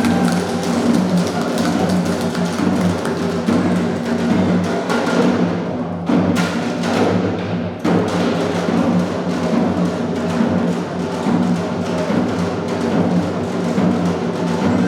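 Music with drums and percussion struck in a dense, steady rhythm over held low tones.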